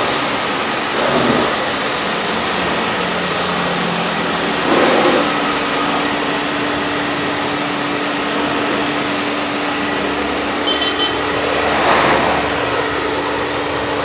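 Single-phase electric 240-bar commercial pressure washer running, its jet spraying water against a car with a steady hiss over the hum of the motor-driven pump. A steady hum tone joins about five seconds in, and the spray swells louder briefly a few times.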